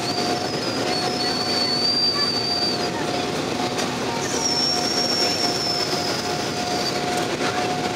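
Jet airliner cabin noise on final approach to landing: a steady rush of engine and air noise with a held hum, and a high thin whine that comes in twice, the second time falling slightly.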